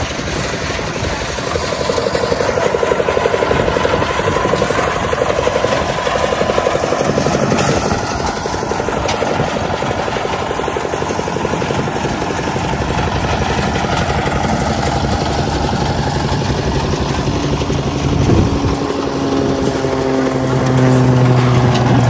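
Engine of site machinery running steadily during a concrete slab pour, with workers' voices in the background; a deeper steady hum comes in near the end.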